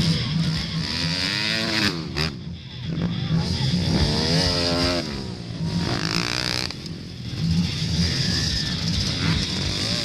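Dirt bike engines revving on a dirt track, the pitch climbing and falling several times as the bikes accelerate and back off.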